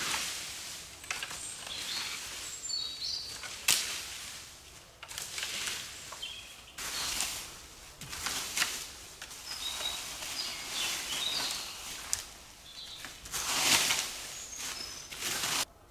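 Small birds chirping over repeated swells of rustling noise. The rustling stops abruptly near the end.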